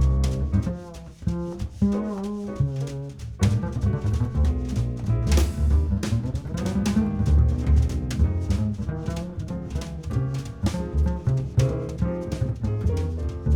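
Instrumental background music with a walking bass line and a steady drum beat.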